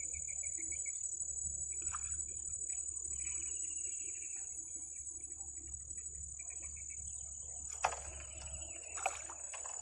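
Steady high-pitched insect drone, with a lower pulsed trill chirping on and off. Two short sharp clicks come near the end.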